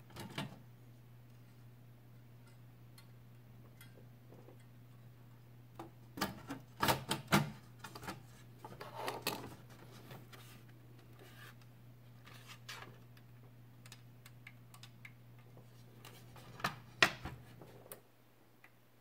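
Clicks and knocks from the plastic case of a Channel Master DVR+ being handled as its covers are pressed into line. There is a cluster of sharp clicks about six to seven and a half seconds in and more around nine seconds, then a loud knock near the end as the unit is turned over onto the table. A steady low hum underneath stops shortly before the end.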